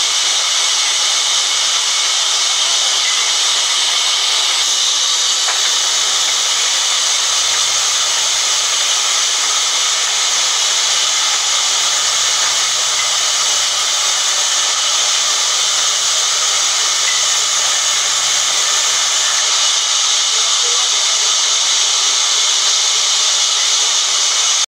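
Large sawmill band saw running and ripping lengthwise through a thick timber plank as it is fed along the table: a loud, steady hiss.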